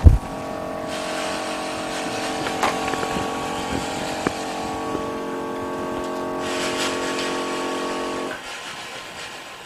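A freeze-plate LCD separator's built-in vacuum pump switched on with a click and running with a steady hum. It cuts off about eight seconds in.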